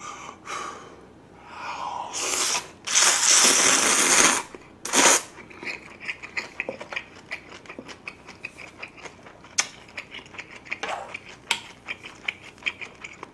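A long, loud slurp of thin somyeon noodles with kimchi, then a second short slurp. These are followed by close, rapid, clicky chewing of the mouthful.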